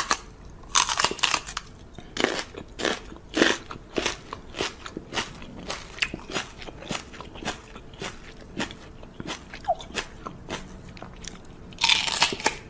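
Repeated wet lip smacks of a person kissing a small dog's paw, short sharp smacks about two to three a second. Louder noisy bursts come at the start and near the end.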